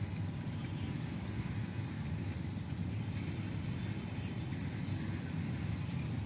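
Steady outdoor background noise: a low rumble with a faint hiss above it, unchanging throughout, with no distinct event.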